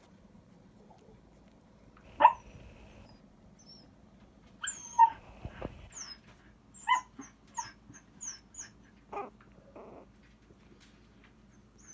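Two-week-old puppies whimpering and squeaking: short high-pitched cries and thin squeals scattered through, the loudest about two seconds in and a run of them from the middle on.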